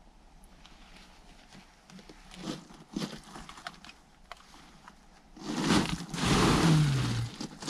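Faint scuffs and scrapes of a person moving through a cramped cave passage. Near the end comes a loud, close rustle and scrape of clothing and gear lasting about two seconds.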